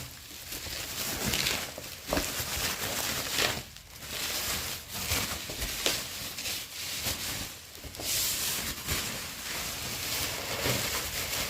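Rustling and handling of a keyboard-and-mouse combo's packaging, with uneven crinkling and several short knocks.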